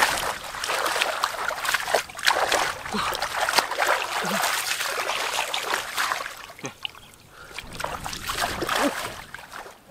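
Shallow floodwater splashing and sloshing in irregular bursts, dipping quieter about two-thirds of the way through before a last swell.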